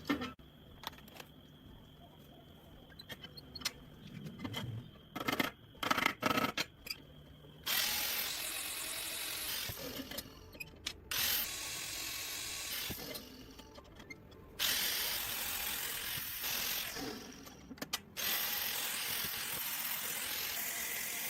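Scattered clicks and taps of handling, then a power tool running in four runs of two to three seconds each as the bone-and-wood knife handle is contoured.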